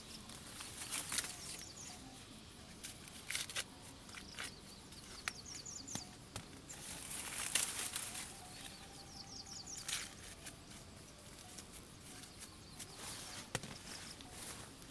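Rustling of leaves and plant stalks in short bursts, with a few sharp snaps, as someone moves and works among the crops. High chirping comes in short quick trills several times in the background.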